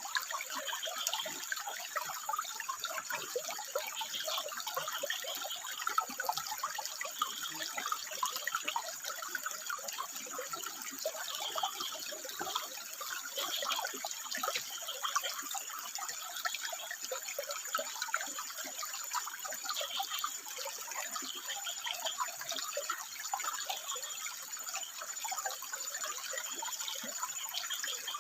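Water running and splashing steadily over rocks, trickling and dripping without pause.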